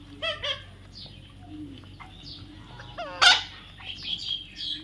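Parrot calling: two short squawks near the start, a loud harsh squawk about three seconds in, then a quick run of higher chirps.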